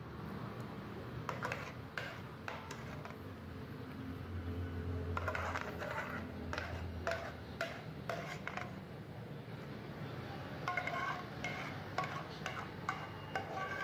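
Metal ladle scraping and clinking against a steel pan as a thick, creamy curry is scooped out and spooned into a clay pot, in a run of short scrapes and knocks.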